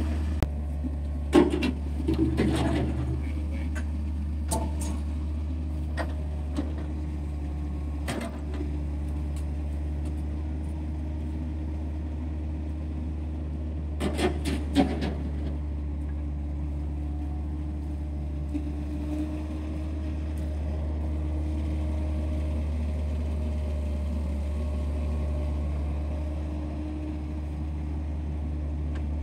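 Caterpillar 307C excavator's diesel engine running steadily as it digs out a beaver dam. A few sharp knocks and clatters from the bucket and debris come about a second or two in and again around fourteen seconds in.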